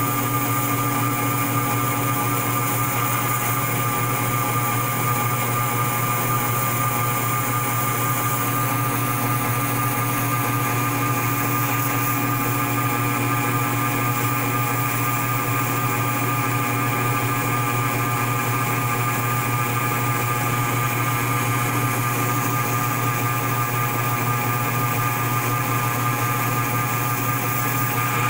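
Logan 2955V variable-speed metal lathe running under power, turning a metal bar as the carriage feeds the cutting tool along it: a steady motor and drive hum with a constant high whine.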